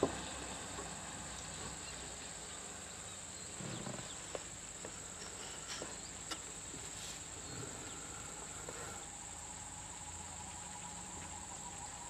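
Faint, steady high-pitched drone of insects in the roadside vegetation, with a few faint clicks.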